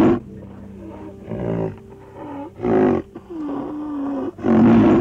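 Rhinoceros calling: four short, loud bellows, spaced about a second or more apart, with quieter drawn-out moaning tones between them.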